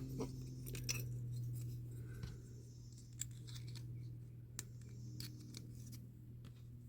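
Scattered light clicks and small scrapes of hand tools working on a small die-cast metal part, over a steady low hum.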